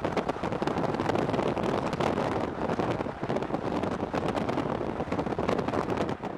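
Wind rushing and buffeting the microphone over the road noise of a moving vehicle.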